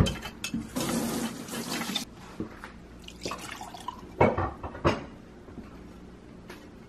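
A wooden stick scraping and clicking in a steel pitcher of melted candle wax, then melted wax poured from the steel pot into a glass jar, with two sharp knocks a little over four seconds in and just before five.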